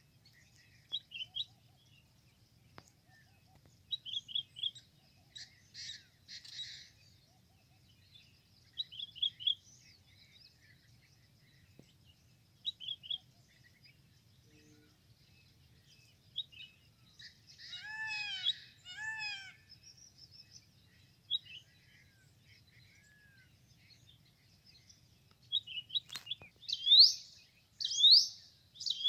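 Wild birds chirping and calling: short high chirps every few seconds, two drawn-out downward-sliding calls about two-thirds of the way through, and louder sweeping calls near the end, over a faint steady low rumble.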